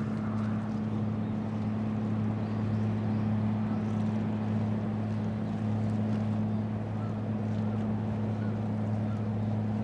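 Transport ship Shimokita's diesel engines running, a steady low drone with an even hum that does not change.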